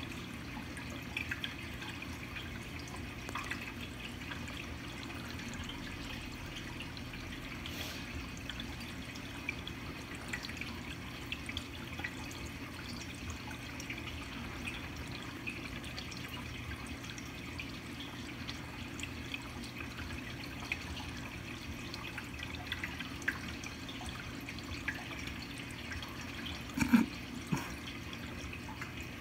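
Reef aquarium water circulating: a steady low pump hum under a light trickle with scattered small drips. One louder knock near the end.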